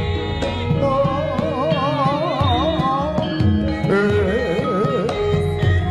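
Javanese gamelan music from a wayang kulit performance: a singer's voice wavers in heavy vibrato over steady ringing metal tones and hand-drum strokes. The singing swells about a second in and again about four seconds in.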